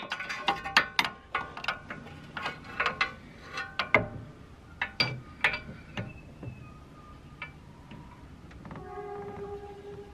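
Metal tools and car suspension parts knocking together: a rapid, irregular run of sharp metallic clanks and clinks, several ringing briefly. A short steady squeak comes near the end.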